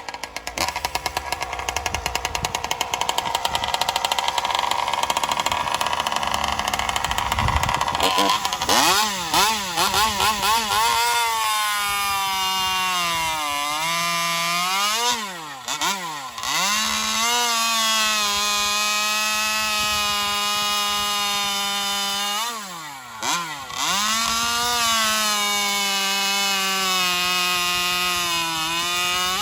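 Alcohol-fueled Joncutter 5800 two-stroke chainsaw engine with an expansion-chamber pipe. For about eight seconds it runs hard and ragged, then it revs up and down and holds a high, steady pitch, with sharp dips in revs three times. The owners say the saw is not running right and the pipe is not hitting right; they suspect a fuel line.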